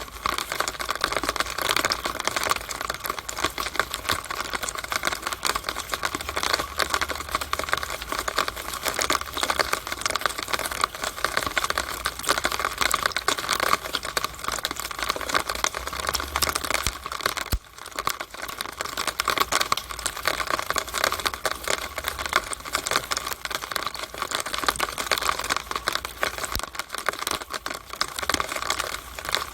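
Rainwater running and dripping through a downspout: a dense, irregular patter of drops that goes on steadily.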